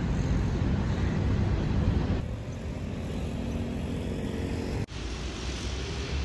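City street traffic noise: a steady rush of passing cars with a heavy low rumble. It breaks off for an instant almost five seconds in and then carries on much the same.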